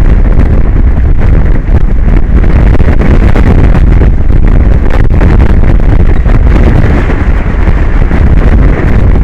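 Strong wind blowing across the microphone: loud, steady wind noise that is heaviest in the low end, with no break.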